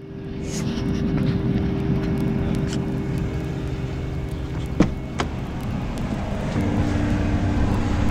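A vehicle engine running steadily, with two sharp clicks about five seconds in as the pickup truck's door is opened, and a knock at the very end.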